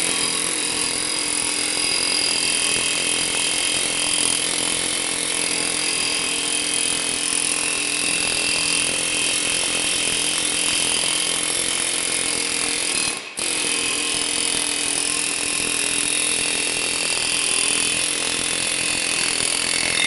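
Pneumatic air hammer rattling against the hat of a 2008 Suzuki XL7's front brake rotor, which is rust-frozen to the hub, vibrating it loose. It runs continuously, with one brief pause about 13 seconds in.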